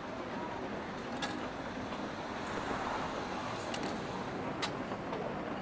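Rainy café ambience: a steady wash of rain and room noise, with three sharp clinks spread through it at about one, three and three-quarter, and four and a half seconds in.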